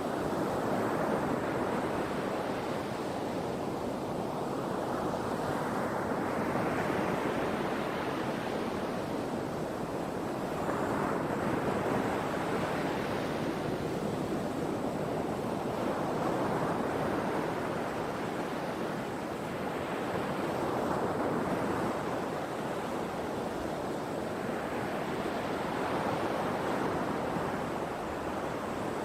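Sea waves breaking and washing up the shore, a steady surf that swells in a fresh surge every four to five seconds.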